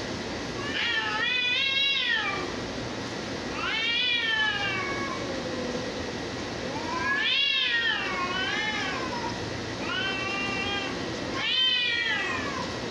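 A calico cat and a tabby-and-white cat yowling at each other in a standoff, long wavering calls that rise and fall in pitch, about five of them in turn. This is the threat yowling of two cats squaring off before a fight, with no blows yet.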